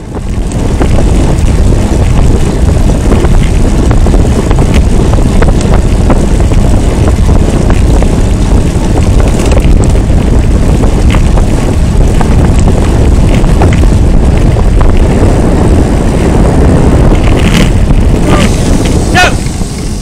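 Heavy wind buffeting on a bicycle-mounted Cycliq Fly6 camera's microphone as the bike rolls along the road. Near the end a few short, high yelping barks from dogs cut through the wind.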